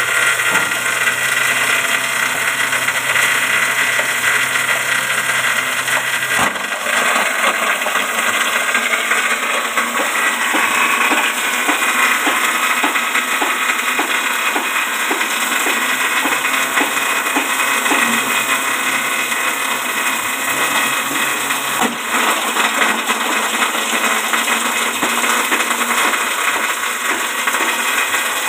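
JG 25 multi-purpose grass chopper running with a loud, steady whirr as grass is fed in and shredded. A lower hum under it drops away about six seconds in.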